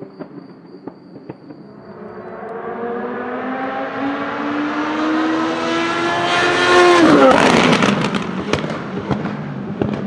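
Rebellion R-13 LMP1's Gibson GL-458 4.5-litre V8 racing engine comes closer at full throttle, rising steadily in pitch and loudness. About seven seconds in the pitch drops sharply as it goes by, and a string of sharp pops follows.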